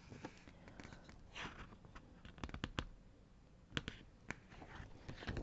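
A page of a large paper picture book being turned: a soft paper swish about a second and a half in, then a few faint clicks and taps as the book is handled.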